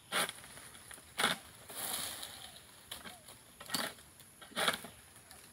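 Pole sickle hacking at oil palm fronds high in the crown: four sharp cutting strokes, with a rustle of leaves about two seconds in.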